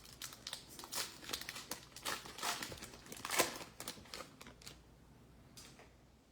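Foil wrapper of a trading-card pack crinkling and being torn open, a run of quick crackles that dies away after about four and a half seconds.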